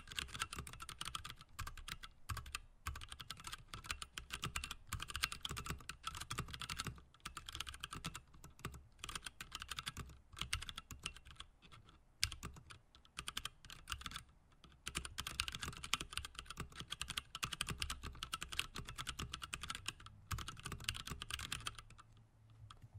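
Typing on a Whitefox mechanical keyboard with unlubed Gateron Brown tactile switches and DSA-profile keycaps: a fast, continuous clatter of keystrokes with a few short pauses, stopping about a second before the end.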